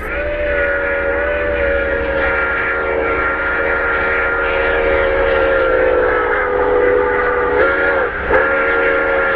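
Steam locomotive chime whistle blowing one long chord of several tones over a hiss. Near the end the pitch dips, the whistle breaks off briefly, then it sounds again.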